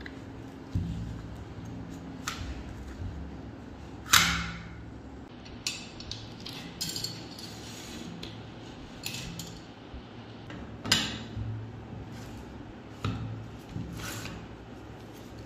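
Steel parts of a light machine gun's action being handled and fitted together: the bolt and recoil-spring assembly slid into the receiver, with scattered metallic clicks and clinks, the sharpest about four seconds in and another about eleven seconds in, over a low steady hum.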